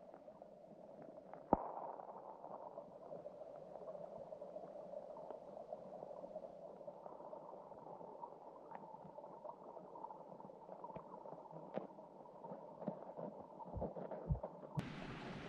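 Mountain creek running, a steady low water sound with scattered small clicks and a sharp knock about a second and a half in. Near the end the sound turns suddenly brighter and hissier.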